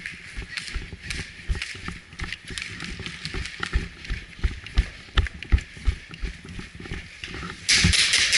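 Footsteps hurrying across a gritty concrete floor, about two to three steps a second, with clothing and gear rustling. Near the end a short, loud burst of rustling noise.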